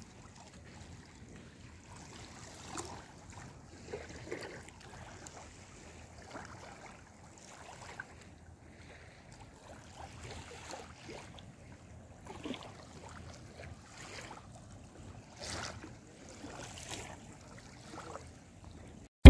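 Small, gentle sea waves lapping at a sandy shore, quiet with soft, irregular splashes.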